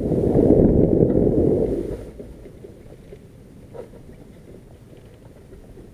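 Wind buffeting the microphone: a loud low rumble for about the first two seconds that then drops to a faint rumble.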